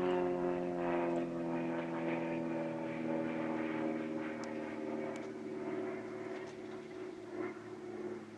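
Single-engine aerobatic propeller aircraft flying a display pass. Its engine and propeller note glides slowly lower and fades as it draws away.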